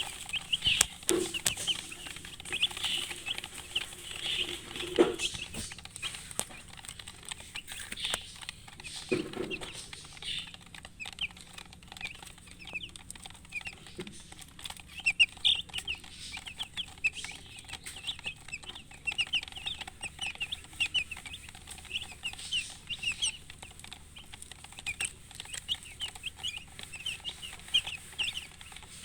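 Chicks peeping without pause, a dense stream of short high-pitched cheeps. A hen gives a few low clucks in the first ten seconds, about 1, 5 and 9 seconds in.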